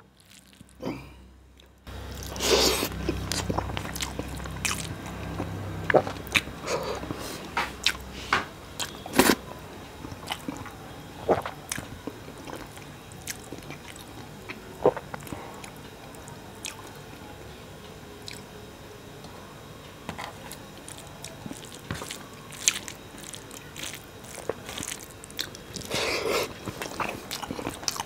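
Close-miked mouth sounds of a person eating rice by hand: chewing, wet lip smacks and clicks, with fingers squishing and mixing rice on a steel plate. The smacks come in a busier run a couple of seconds in and again near the end.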